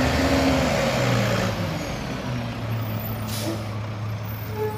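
Rear-loading garbage truck's diesel engine running as it drives past, with a steady low hum whose tone rises and falls in the first second or so. A short hiss of air brakes comes about three and a half seconds in.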